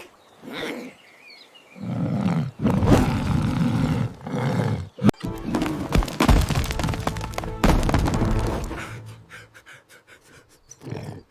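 Music-driven soundtrack with several heavy thuds, loudest in the middle stretch, fading out near the end.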